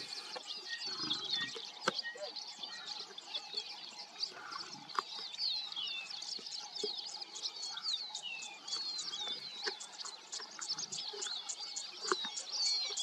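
Many small birds chirping and calling at once, with quick whistled notes that slide down in pitch and a fast, even ticking call that grows plainer in the second half. A few sharp clicks and some soft low sounds come through underneath.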